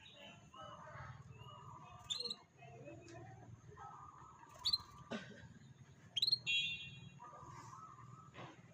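Canaries chirping: several short, sharp rising chirps, with a brief rapid trill about six and a half seconds in, over a low steady hum.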